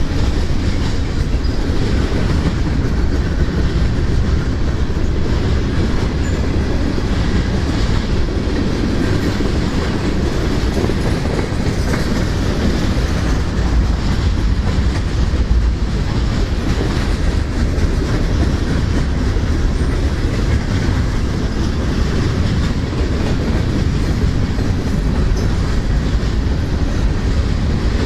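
CSX freight train's cars rolling past close by, a steady loud rumble of wheels on rail with clickety-clack over the rail joints.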